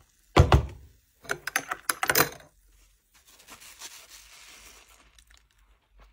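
A thud, then a quick run of clinks of a metal spoon against a glass mug. Then a faint, soft wet squeeze as a soapy dish sponge is wrung out over the mug.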